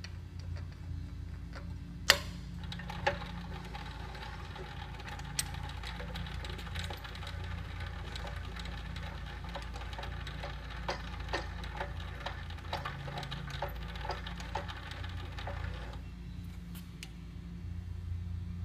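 Geared actuator of a Tube Turns double-bolt yoke-style pipeline closure running as the split-yoke clamps spread apart, with steady mechanical noise and many small metal clicks. It starts with a sharp clack about two seconds in and stops about sixteen seconds in.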